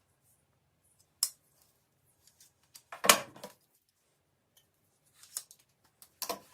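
A few scattered sharp clicks and knocks of things being handled, the loudest about three seconds in with a short rattle, over a faint low hum.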